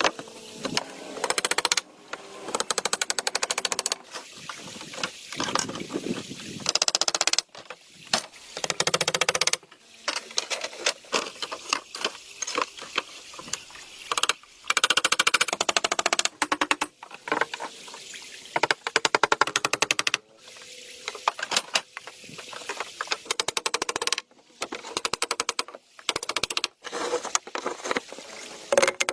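Rapid runs of sharp knocks and taps, many per second, coming in bursts of a second or two with short pauses between them.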